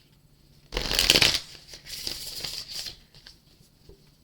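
Tarot cards being shuffled by hand: a loud burst of riffling about a second in, then a softer stretch of card rustling with small clicks.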